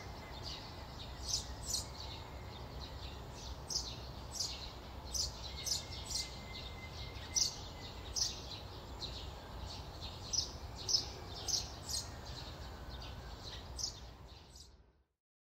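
Small birds chirping, short high calls repeated irregularly, over a low steady outdoor rumble; the sound fades out near the end.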